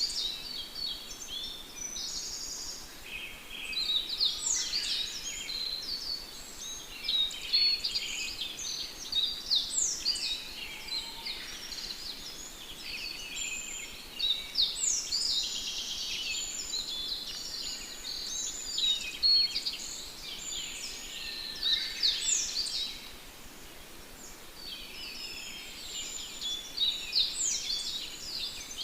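A flock of sparrows chirping and chattering, with many short, high calls overlapping almost without a break. The chatter thins briefly about two-thirds of the way through.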